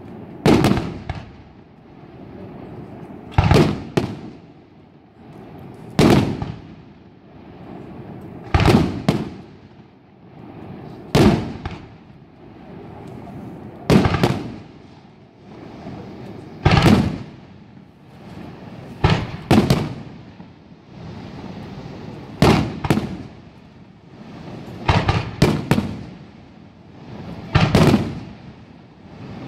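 Aerial fireworks shells bursting in a steady sequence: a loud bang, sometimes two in quick succession, about every two and a half seconds, with a continuous noisy rumble between the bangs.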